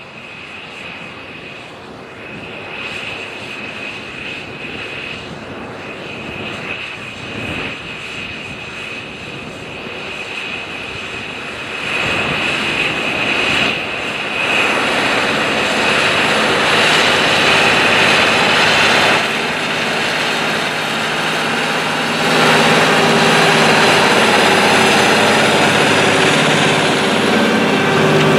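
John Deere 9620R articulated four-wheel-drive tractor's diesel engine running under load as it pulls a turbo chisel plow through hard-packed soil. It grows steadily louder as the tractor approaches and passes close by.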